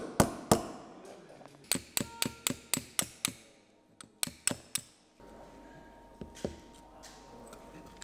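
Small hammer tapping a steel pin punch to drive a pin in a Beretta 92FS pistol frame: sharp metallic taps in runs, three at first, then a quick run of about eight, then four more, with a couple of light taps near the end.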